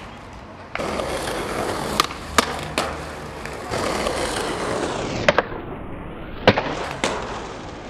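Polyurethane skateboard wheels roll on concrete pavement, with a few light clicks along the way. Then come sharp clacks of the board, the loudest a little over a second before the end as the board comes down hard during a flip trick, and one more shortly after.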